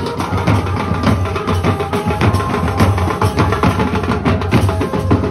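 Baraat wedding band playing on the march: loud, fast drumming on the band's drums with a melody held over it.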